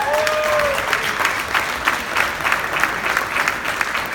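Audience clapping and applauding an award winner, with one voice cheering over it in the first second.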